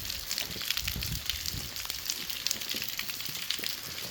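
Rain falling: a steady patter of drops, with many sharp irregular ticks of drops landing close by.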